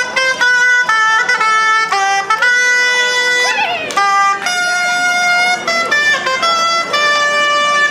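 A small wind pipe playing a tune, one note at a time, mixing short notes with longer held ones.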